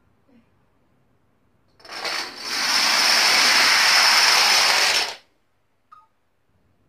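A field of about 2,000 dominoes toppling in a chain: a dense, fast clatter that starts about two seconds in, builds quickly, runs for about three seconds and cuts off suddenly, with one last lone click about a second later.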